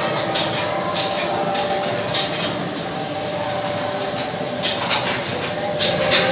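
Scattered metallic clinks and clatter, like metal pots or dishes being knocked, about half a dozen at irregular intervals over a faint steady hum.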